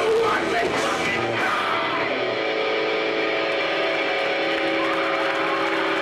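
Live rock band with electric guitar playing loud, dense music. About two seconds in the drums and low end drop away, leaving sustained guitar notes ringing on.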